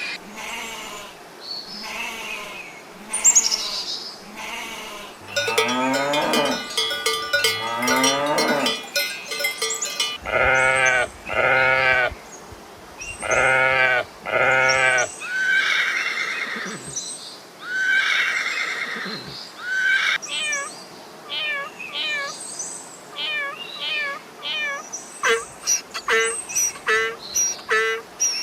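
A succession of different farm animal calls, one after another. Pitched calls with several tones fill the first half, and many short, quick high calls repeat near the end.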